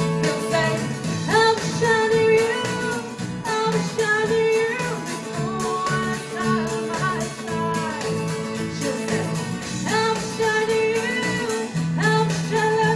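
Live band music: a woman singing lead over strummed guitars.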